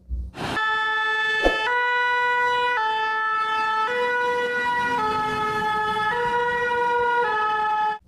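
Fire engine's two-tone siren, switching back and forth between a lower and a higher pitch about once a second.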